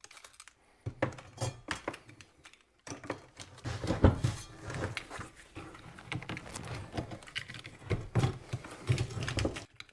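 Hand tool cutting and prying apart a driveshaft's old rubber-and-steel center support bearing: irregular scraping, creaking and sharp metal clicks, busier from about three seconds in.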